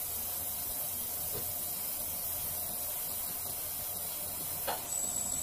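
EM-Smart fiber laser marking machine engraving a metal coin, a steady hiss. A thin high-pitched whine joins it near the end.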